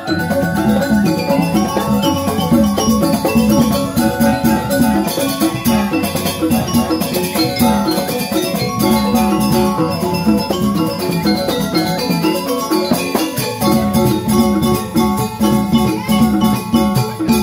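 Balinese joged bumbung gamelan playing: bamboo xylophones (grantang) ring out a fast, interlocking melody of rapidly repeated notes over kendang hand drums.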